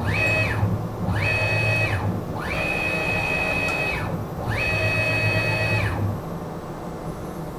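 Stepper motor driving a CNC mill's Z axis through four jog moves. Each move has a whine that rises in pitch as the motor speeds up, holds steady, then falls as it slows to a stop. A short pause separates each move, and the last ends about six seconds in.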